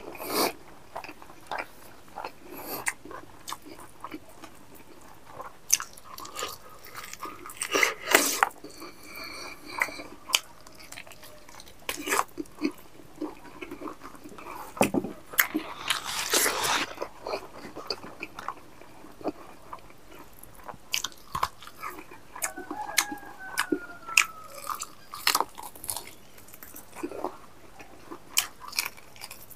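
Close-miked chewing of a mouthful of rice and meat eaten by hand: wet mouth clicks, smacking and crunches coming in irregular bursts, loudest about 8 seconds in and again around the middle.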